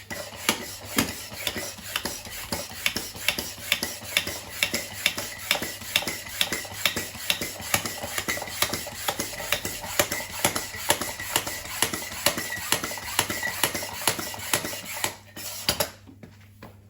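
Bicycle pump being worked to inflate a newly fitted bike tyre: a steady run of sharp clacks, about three strokes a second, with a thin steady high tone alongside. The strokes stop about fifteen seconds in.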